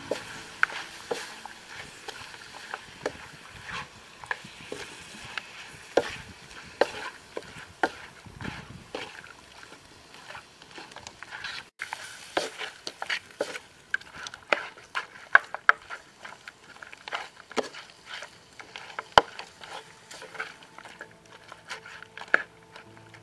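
A wooden spatula stirring pork leg pieces in a metal wok, scraping and knocking against the pan in irregular strokes over a low sizzle of frying.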